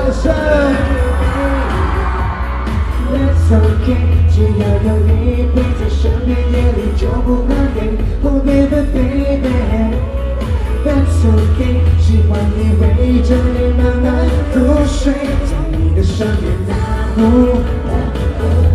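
Pop song sung live by a male vocalist over a backing track with a heavy, pulsing bass beat.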